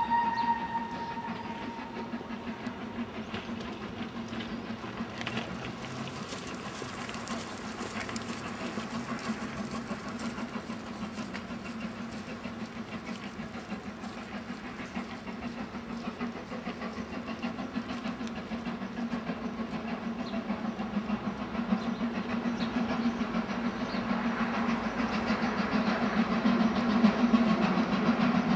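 Steam locomotive 6024, a GWR King class four-cylinder 4-6-0, working a train toward the station, with its sound growing louder over the last ten seconds. The tail of a whistle blast dies away at the very start.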